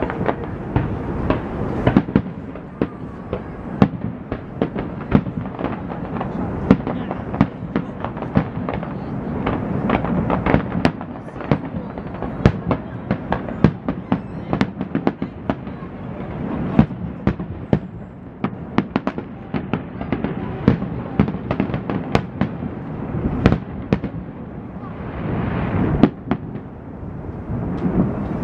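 Aerial fireworks bursting: a dense, irregular run of sharp bangs and crackles, several a second, thinning out near the end.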